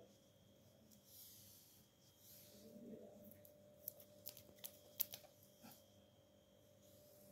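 Near silence: room tone, broken between about four and six seconds in by a quick run of about eight sharp clicks.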